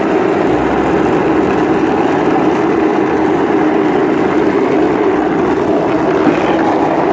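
Truck-size steel ball bearings used as the wheels of a giant ball-bearing cart rolling down an asphalt street: a loud, steady grinding rumble, with one brief knock about six seconds in.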